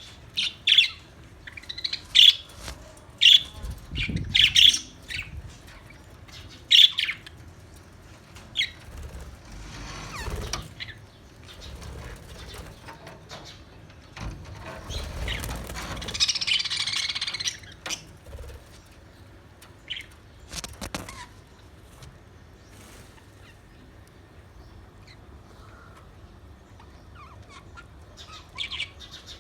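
Australian parrots calling with short, sharp chirps, several in quick succession in the first few seconds, then a rustle of wing flaps and a burst of chatter around the middle. After that only a few scattered calls, with a last cluster near the end.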